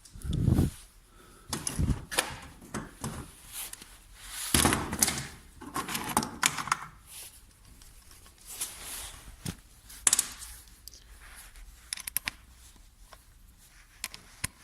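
Hand tools being handled on a car engine: irregular metallic clicks and clinks of spanners, with a couple of dull knocks in the first two seconds and a longer stretch of rustling and scraping in the middle.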